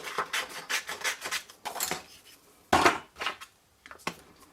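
Card stock and stamping supplies being handled and slid across a craft desk: a run of short rustling scrapes, the loudest just before three seconds in, then a short pause.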